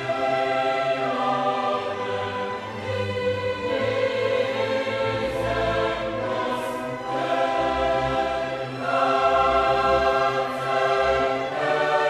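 Choral music with orchestra: a choir singing long, held notes over shifting chords.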